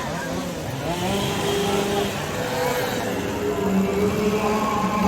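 Chainsaw engines revving up and down, more than one running at once, their pitch rising, holding and dropping again.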